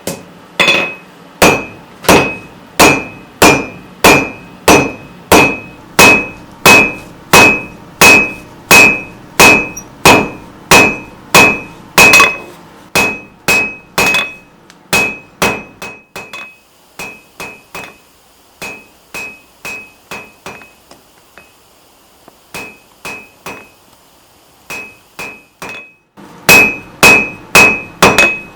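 Hand hammer blows on hot steel over an anvil, a steady rhythm of about two strikes a second, each with a high ring. About halfway through the blows turn lighter and sparser with a short pause, then heavy strikes resume near the end.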